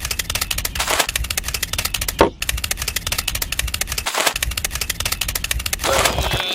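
A small machine clattering steadily with a rapid, even run of knocks, with a louder swish four times.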